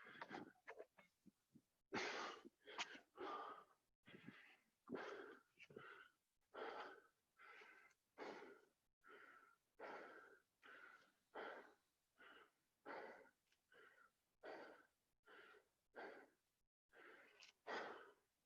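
Faint, fast, hard breathing of a person exerting through burpees: short rhythmic breaths, about one and a half a second.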